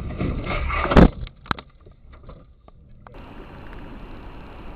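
Vehicle collision: one loud crash about a second in and a second, sharper bang half a second later, followed by a few faint clicks and then a steady low hiss.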